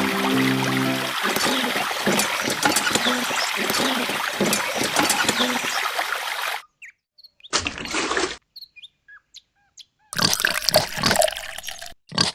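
Music stops about a second in, then water pours and splashes for about five seconds and cuts off suddenly; short bursts of sound with silent gaps follow.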